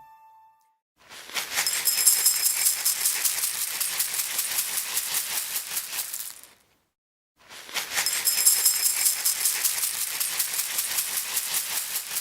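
Something rattled by shaking, with fast, dense clatter in two spells of about five seconds each, parted by a brief pause.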